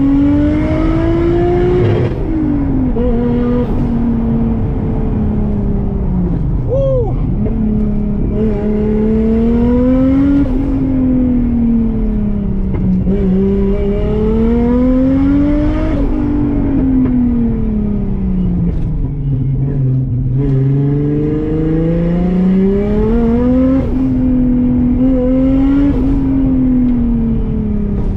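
Toyota 1JZ straight-six engine being driven hard, its pitch climbing for a few seconds under acceleration and then dropping off, over and over, as the car accelerates and lifts through a run of corners.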